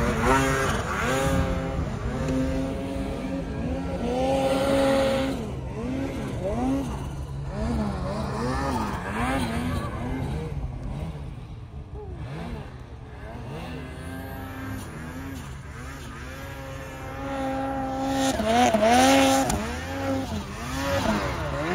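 Snowmobile engines revving up and down again and again as the sleds are worked through deep powder. The sound fades in the middle and comes back loudest near the end.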